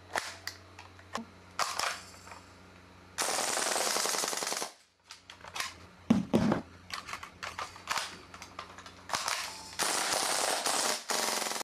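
WELL G55 (MP5K-style) gas blowback airsoft submachine gun firing: sharp single clacks at first, then a full-auto burst of about a second and a half just after three seconds in. Separate single shots follow, then another full-auto burst near the end.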